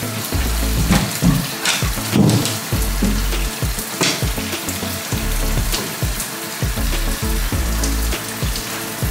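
Shower spray running in a steady hiss, with a few sharp knocks over it and background music underneath.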